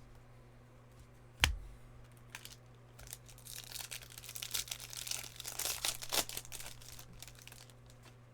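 Plastic trading-card pack wrapper crinkling and tearing as a pack is opened by hand, with a single sharp knock about a second and a half in.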